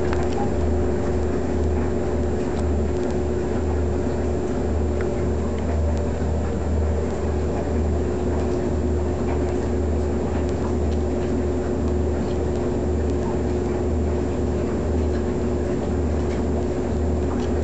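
A steady low machine-like hum that pulses about twice a second, with a fainter steady tone above it and a few faint ticks.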